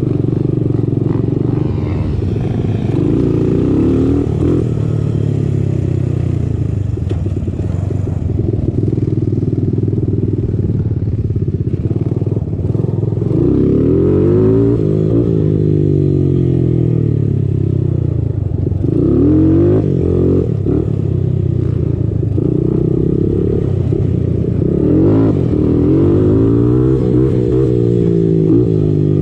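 Single-cylinder sport quad engine running while riding, its pitch rising and falling again and again as the throttle is opened and closed, with several stronger revs along the way.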